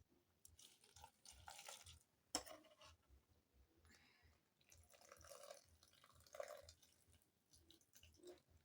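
Faint sound of milk being poured into the smoothie ingredients, in a few short spells of trickling, with a sharp click about two and a half seconds in.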